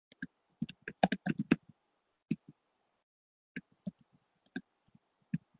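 Typing on a computer keyboard: scattered key clicks, a quick run of them about a second in, then more spaced taps.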